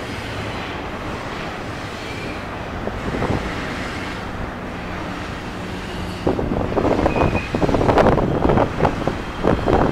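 Double-stack container train's cars rolling across a steel girder bridge: a steady rumble that turns, about six seconds in, into a louder, rapid clatter of wheels.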